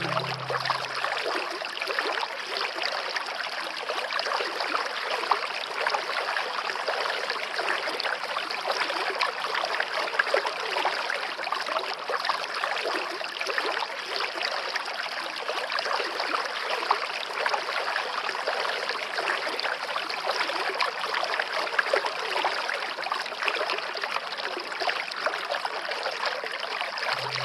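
Stream water flowing and trickling steadily. Low background music fades out about a second in and comes back near the end.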